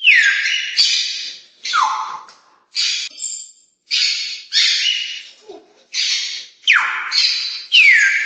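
African grey parrot giving a run of loud, harsh calls, about one a second, many opening with a whistle that slides downward.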